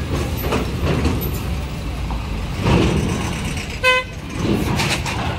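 Heavy truck engines running with a steady low rumble, and a single short vehicle horn toot about four seconds in.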